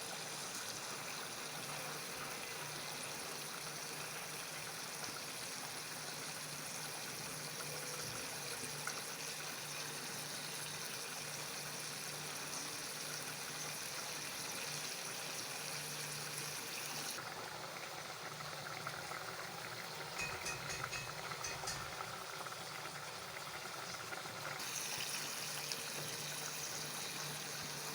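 Steady hissing and bubbling of egg curry (dim bhuna) cooking in a pan on the stove, with a few light clicks about three-quarters of the way through.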